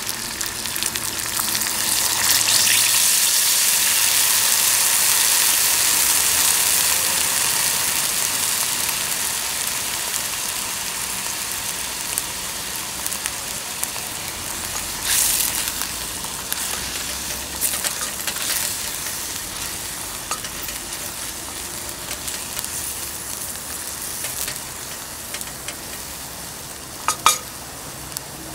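Food frying and sizzling in a pan, a steady hiss that is loudest a few seconds in and slowly dies down. A few sharp clicks stand out, the loudest near the end.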